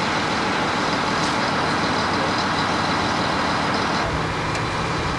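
Steady running of a large truck engine under a dense hiss. About four seconds in the sound shifts: it gets fuller in the lows and a low hum comes in.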